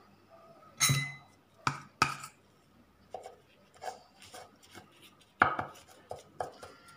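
A spoon clinking and scraping against a ceramic plate as flour paste is dabbed onto the edges of a wrapper: several sharp clinks, the loudest about a second in and again past the middle, with softer scrapes and taps between.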